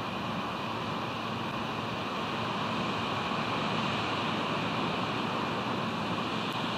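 Steady rushing noise of wind and ocean surf on an outdoor nest-camera microphone.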